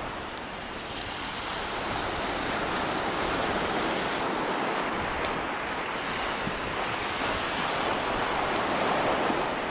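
Sea surf breaking and washing on a sand-and-shingle beach, a steady rushing that swells and eases gently, with wind across the microphone.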